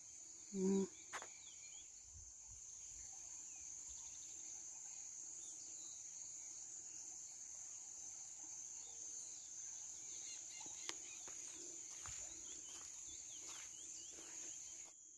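Insects chirping in a steady, high-pitched chorus, with a short hum about a second in and a few faint clicks.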